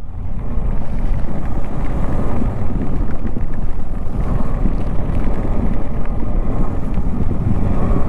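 Motorcycle riding slowly along a wet road: a steady low rumble of the engine and tyres mixed with wind on the microphone.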